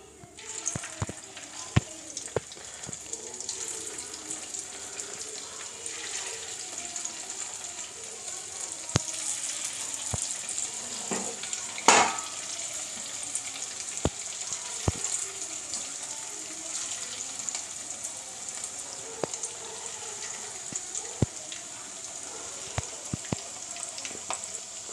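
Marinated chicken pieces deep-frying in hot oil in a clay pot as they are dropped in: a steady sizzle with scattered pops and crackles. One sharp crackle about halfway through is the loudest.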